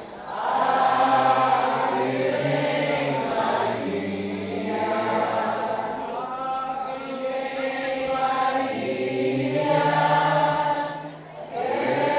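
A group of voices singing a hymn together in long, held phrases, with a short break near the end before the next phrase begins.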